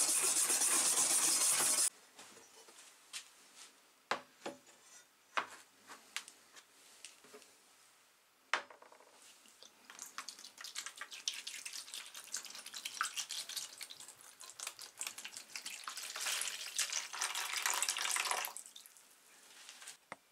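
A hand wire brush scrubs a rusty steel billhook blade, then stops suddenly about two seconds in. A few sharp clicks follow. Then liquid pours from a plastic bottle into a plastic tray in a steady splashing stream for about eight seconds, soaking the rusty blade, and stops shortly before the end.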